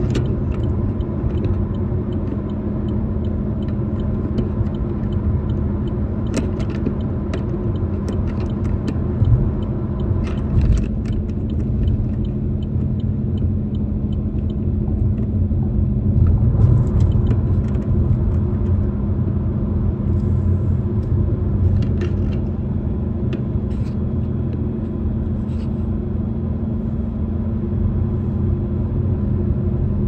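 Car interior road noise at highway speed: a steady low rumble of tyres and engine heard from inside the cabin, with a few faint clicks scattered through it.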